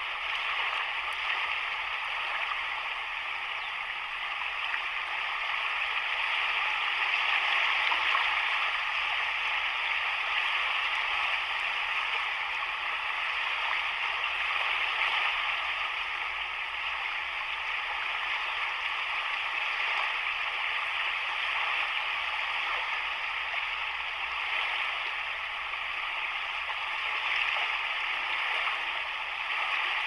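Sea waves washing over a rocky, boulder-strewn shore: a steady rushing wash that swells and eases slowly, loudest about eight seconds in and again near the end.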